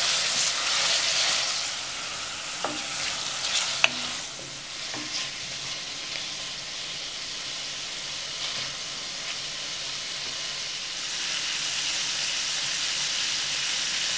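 Prawns sizzling in hot oil in a stainless steel pan: a steady hiss, louder in the first couple of seconds, with a few light taps of a wooden spatula stirring them. The prawns are giving off their water, which is frying off.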